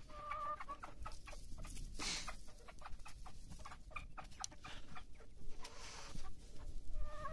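Domestic hens clucking, with a drawn-out call near the start and another near the end, over scattered light clicks.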